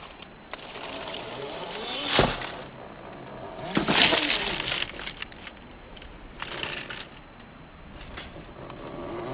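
Axial SCX10 III Jeep CJ-7 RC rock crawler picking its way over boulders and loose stones, with small clinks and clatter from its tyres and body. There are sharp knocks about two seconds in and again around four seconds in.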